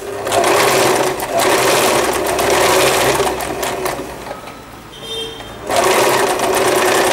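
Usha Janome electric sewing machine stitching an invisible zip into a lehenga. It runs steadily, slows and stops about four and a half seconds in, then starts again for the last second and a half.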